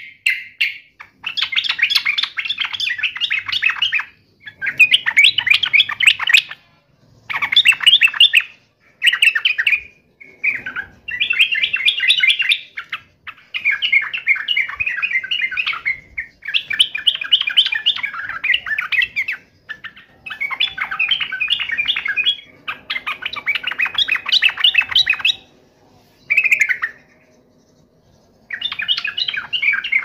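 Yellow-vented bulbul (trucuk) in full song: repeated phrases of fast, high chattering notes. Each phrase lasts one to three seconds with short breaks between them, and there is a longer pause of about two seconds near the end.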